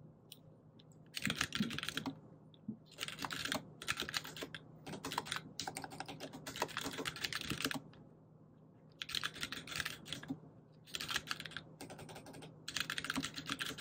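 Typing on a computer keyboard: quick runs of key clicks a second or two long, with short pauses between them.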